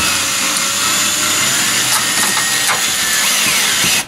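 Cordless drill driving a screw through an HID ballast into sheet metal, the motor running steadily under load and stopping just before four seconds in.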